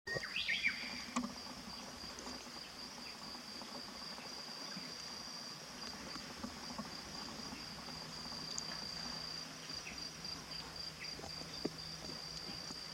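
An insect's steady high-pitched trill, pulsing in places, with a short falling bird call right at the start and a few faint chirps scattered through.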